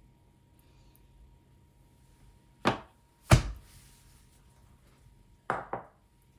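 A few sharp knocks of hard objects being handled or set down: two single knocks well under a second apart around the middle, the second the loudest, then a quick double knock near the end.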